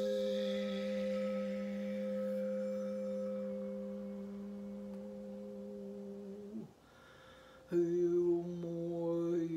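Frosted quartz crystal singing bowl sounding a steady low tone with overtones as a mallet is worked around it; about two-thirds through the tone fades away. About a second later a struck bowl starts a new, louder and lower tone, and a humming voice joins it near the end.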